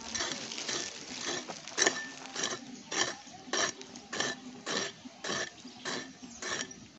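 Hand pick chopping into dry, stony soil in a steady rhythm, about two strikes a second, each a short crack with a scrape of dirt and grit; one strike about two seconds in is louder than the rest.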